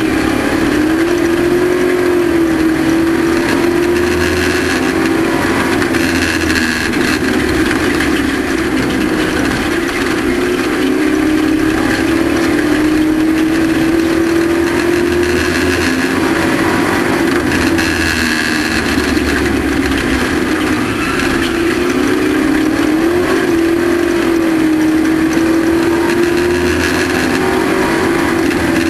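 Race truck engine running hard at racing speed, its pitch climbing slowly and then falling back several times in long swells.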